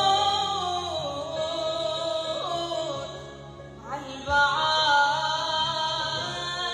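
A woman singing an Arabic song into a microphone in long, held, wavering notes. There is a short break about four seconds in, then a new phrase that slides up in pitch.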